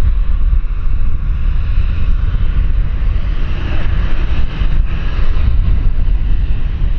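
Heavy wind rumble on the microphone over the jet engine noise of an Airbus A320, a broad rush that grows a little stronger around the middle.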